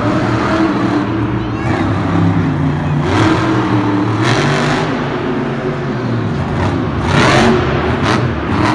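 An engine running, its pitch shifting a little up and down, with several short bursts of hiss about three, four and seven seconds in.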